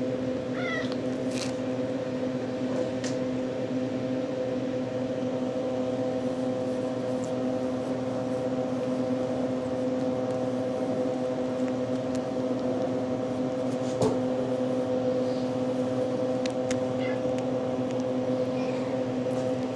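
A steady mechanical hum, with a few faint kitten mews about a second in and again near the end.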